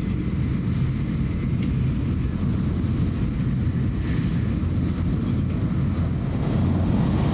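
Steady low rumble of a Tokaido Shinkansen train running at speed, heard inside the passenger car, growing a little louder near the end.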